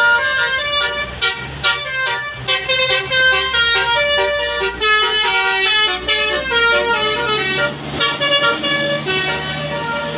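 Bus "telolet basuri" musical air horn playing a quick melody of short, jumping notes, with a low steady engine rumble underneath.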